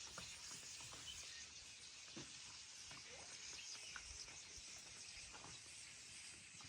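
Quiet natural ambience with a faint steady hiss and a few faint, scattered bird chirps.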